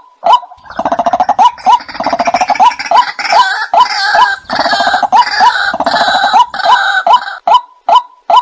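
White-breasted waterhen calls, as played for a hunting lure: a steady run of sharp, clipped notes about two a second. From about half a second in until near the end, a louder, dense chorus of rapid, gargling calls takes over.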